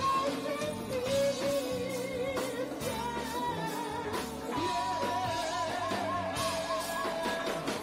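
Live rock band playing (electric guitar, bass, drums and keyboards) while a male singer sings into a microphone, the melody holding long notes with wide vibrato.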